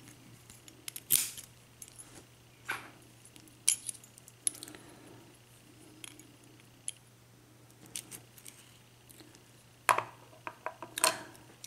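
Small metal padlock parts clicking and clinking as the lock is handled and taken apart, in a handful of sharp, separate clicks spread irregularly, with a faint steady hum beneath.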